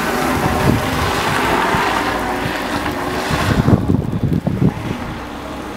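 Car engine revving hard as the car drifts sideways through snow, passing close and then pulling away. About three and a half seconds in, the engine's high, bright sound cuts out suddenly, leaving low, uneven wind buffeting on the microphone.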